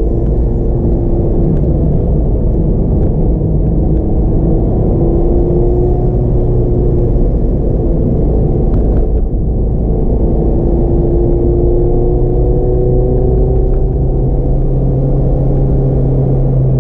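Mazda MX-5 RF's four-cylinder engine running under way with steady road and tyre rumble, heard from inside the cabin. The engine note rises slowly in pitch a couple of times as the car accelerates.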